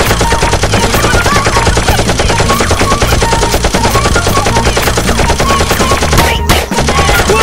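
Rapid automatic gunfire, a fast unbroken stream of shots, with a brief break about six and a half seconds in.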